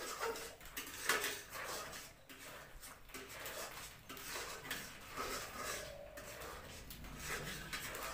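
Metal ladle scraping and stirring semolina in a metal kadhai: irregular scrapes and clinks of metal on metal, the loudest about a second in.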